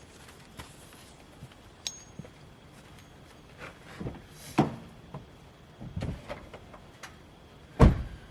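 Scattered knocks and clinks, with a few heavier thumps and one loud thump near the end.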